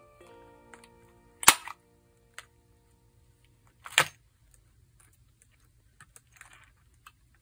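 Two sharp, loud clicks about two and a half seconds apart, over light background music that stops after about two seconds, with faint rustling near the end.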